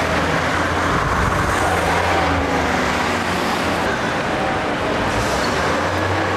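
Busy street traffic, with a double-decker bus's diesel engine running close by over a steady wash of road noise.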